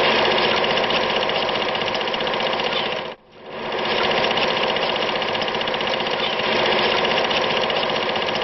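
Fast, steady mechanical clatter of a machine running at speed, with a brief break about three seconds in.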